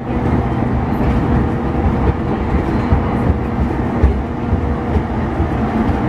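Train running, heard from inside the passenger car: a loud, steady rumble with a faint steady hum.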